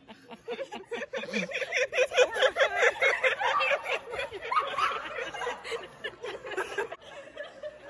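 Young women laughing hard, a rapid run of giggling pulses that is loudest in the middle and dies down near the end.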